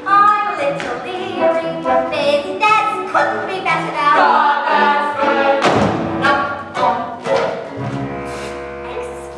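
An ensemble of voices singing together with a pit orchestra in a live stage musical. Two sharp knocks cut through in the second half.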